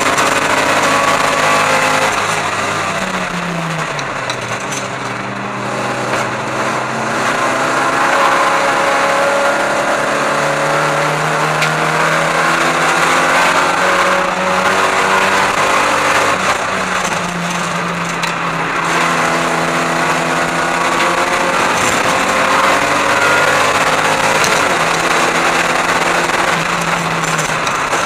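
Race car's engine heard from inside the cabin at speed, revs climbing and dropping with gear changes and corners; the revs fall away about three seconds in as the car slows, then build up again.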